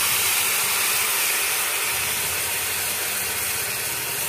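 Tomatoes and green chillies poured into hot tempering oil, sizzling and crackling loudly. The steady hiss eases slowly as the oil cools.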